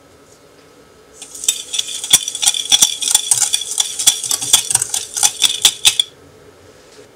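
Wire whisk stirring dry granulated sugar and gelatine powder in a glass bowl: a rapid, gritty scraping with many small clicks, starting about a second in and stopping about a second before the end.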